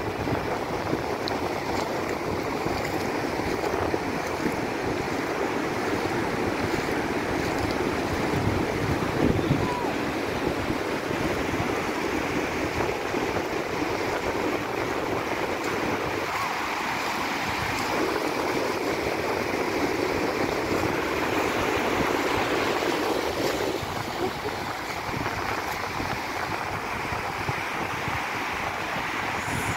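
Pacific surf breaking offshore and washing up over flat wet sand in a steady, continuous wash.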